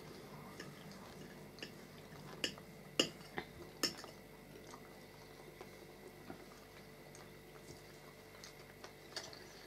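Metal forks and a spoon clinking and scraping against plates and bowls while eating. Several sharp clinks come between about one and a half and four seconds in, then only light taps.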